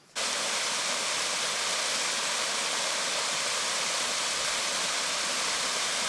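Waterfall pouring over rock into a pool: a steady, even rush of falling water that cuts in suddenly right at the start.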